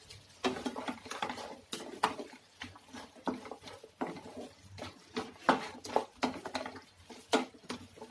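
A spoon knocking and scraping against a frying pan in irregular strokes, about one or two a second, as fried chicken pieces are tossed in a thick sauce.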